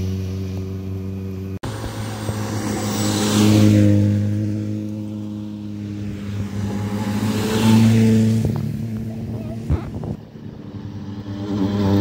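Rally cars driving past one at a time on a gravel forest stage, each engine loud as the car goes by. The passes peak about three and a half and eight seconds in, and another car is closing in at the end.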